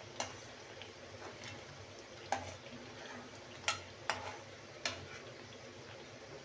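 Thattai deep-frying in hot oil with a steady sizzle, while a perforated metal ladle knocks sharply against the metal kadai about five times as fried pieces are lifted out.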